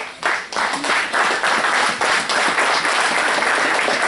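Audience applauding: clapping starts just after the beginning, swells within the first second and holds steady.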